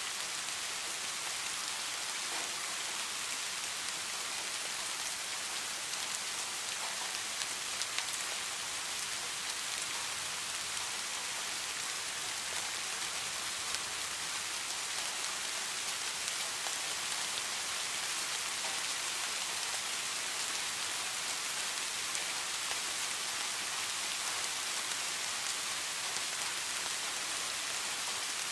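Steady rain falling, a continuous even hiss with a few sharper drop ticks scattered through it.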